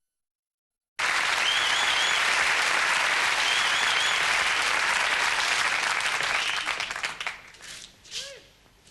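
Audience applause starting suddenly about a second in and dying away after about six seconds, with two short warbling whistles from the crowd.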